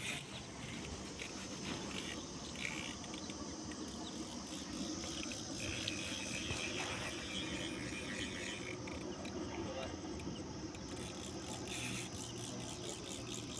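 Insects chirring steadily in a constant high-pitched drone.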